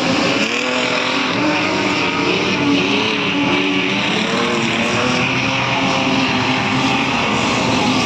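Several street stock race cars' engines revving hard together, their pitches rising and falling as they race around the track.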